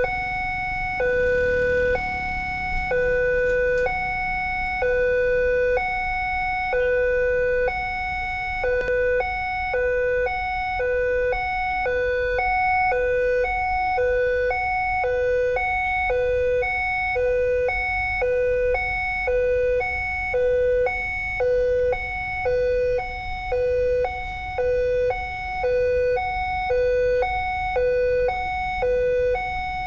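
Railway level-crossing warning alarm sounding a steady two-tone electronic signal, a lower and a higher note taking turns. About eight seconds in, the alternation quickens to about twice as fast.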